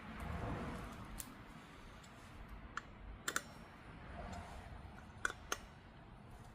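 Hand tools clicking against metal parts during work on a scooter's rear brake disc. There are five short sharp clicks, the middle two close together and the last two about a quarter second apart, over a low background rumble.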